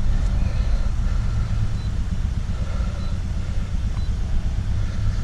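Acura TSX 2.4-litre four-cylinder engine idling with a steady low rumble, running with a misfire on one cylinder caused by a faulty ignition coil.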